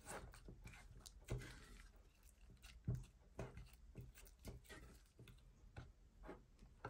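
Silicone spatula stirring a thick chocolate mixture in a stainless steel saucepan: faint, irregular scrapes and soft squelches, with a couple of louder taps of the spatula against the pan.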